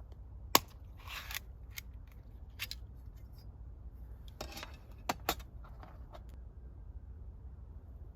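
A handful of sharp clicks and short rustles from an object being handled, over a low steady rumble; the handling stops about two-thirds of the way through.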